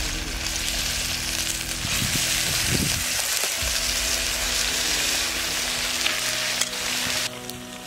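Brinjal pieces sizzling as they fry in a large aluminium kadai, with a few clicks of a metal ladle stirring them. The sizzle cuts off suddenly near the end.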